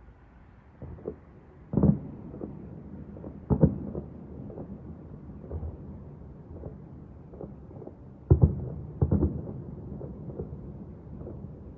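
Fireworks going off at a distance: irregular dull booms, the loudest pair close together about eight and a half seconds in, over a steady low rumble.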